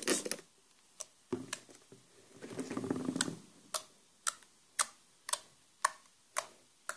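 Hand pressing and kneading blue slime made from clear glue and glass cleaner on a flat surface: sharp little wet clicks and pops, with a short squishy stretch about three seconds in, then an even run of clicks about two a second.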